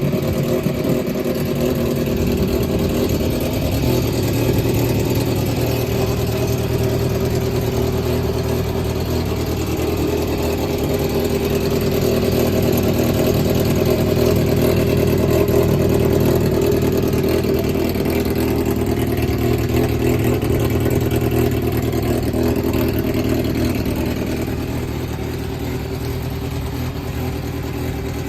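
Yamaha XJR400's air-cooled inline-four motorcycle engine idling steadily, free of abnormal engine noise by the seller's account.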